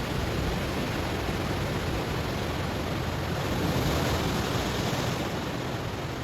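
Ocean waves washing in over stones: a steady rush of surf, with one wave swelling to its loudest about four seconds in and then easing off.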